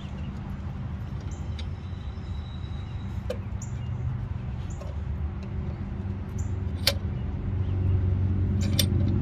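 A vehicle engine running steadily, getting louder about seven and a half seconds in, with a few sharp metallic clicks over it.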